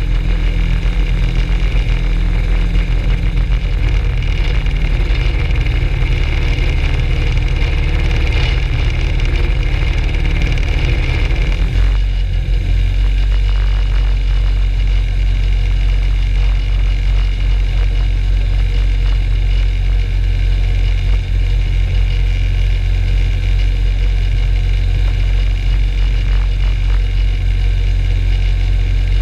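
Rotax 582 two-stroke twin engine of a Skyranger ultralight running steadily on the ground, propeller turning. About twelve seconds in, the engine note changes and its higher whine drops away.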